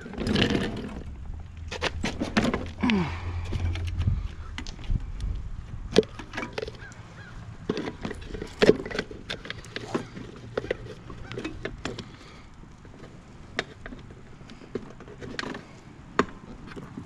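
Irregular clicks, taps and clatters of hands working on a push mower, with a low hum in the first few seconds.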